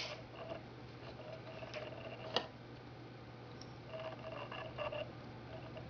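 Wet glass sheet being shifted on the drill-stand table, giving brief faint squeaks and a sharp click about two and a half seconds in, over a low steady hum; the rotary tool is not running.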